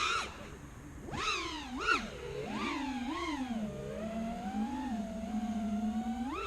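Brushless motors of an FPV racing quadcopter whining, the pitch swooping up and down with quick throttle changes, then holding a fairly steady hum for a couple of seconds before a sharp rise at the very end.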